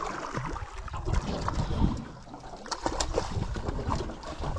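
Water splashing and trickling around a small boat's hull, with scattered short knocks and clicks.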